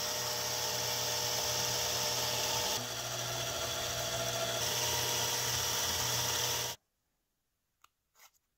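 Cordless drill running steadily with a countersink bit, with a beech-wood handle piece held against the spinning bit to countersink its rivet hole. The drill stops suddenly about seven seconds in, and a few light clicks follow.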